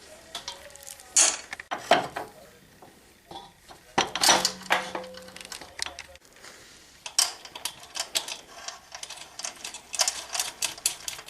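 Metal parts clanking and clinking as they are handled: a few sharp knocks, one ringing briefly about four seconds in, then a quick run of small clinks and rattles near the end.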